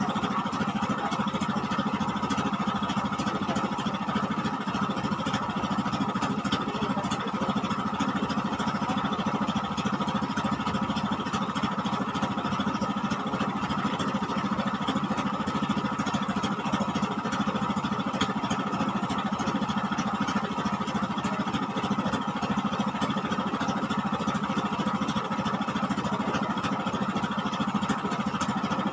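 An engine running steadily at an even pitch, unchanging throughout.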